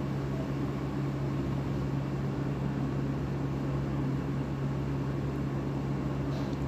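Steady low hum over an even hiss, unchanging throughout, with no ticks or beats.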